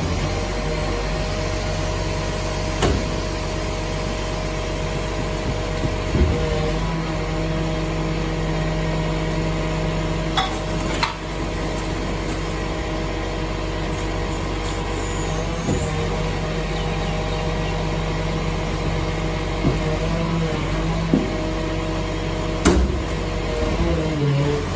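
Rear-loading garbage truck running with its hydraulic bin lifter raising a large four-wheeled wheelie bin, tipping it into the hopper and lowering it again. The steady engine and pump drone shifts as the lifter moves, with a few sharp clanks of the bin against the lifter.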